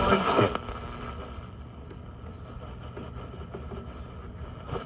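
Zenith Trans-Oceanic portable radio's speaker hissing with static between stations as its tuning dial is turned. In the first half second there is a louder burst of noise with a sliding whistle, then a steady, quieter hiss over a low hum.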